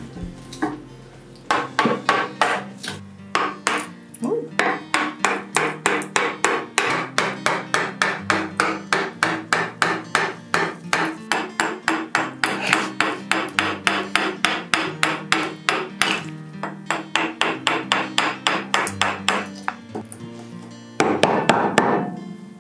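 A wooden joiner's mallet striking a steel chisel again and again, about three to four blows a second, as the chisel chops a mortise into a poplar benchtop. A brief, louder scraping sound comes near the end.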